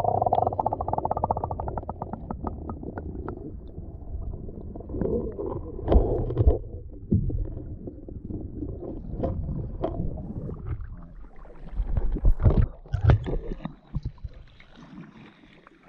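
Muffled underwater rumble and sloshing picked up by a camera held under shallow sea water, with a fast train of clicks fading out over the first couple of seconds. Irregular knocks and thumps follow, loudest about six seconds in and again around twelve to thirteen seconds. Near the end the camera comes out of the water and the sound thins to a light hiss.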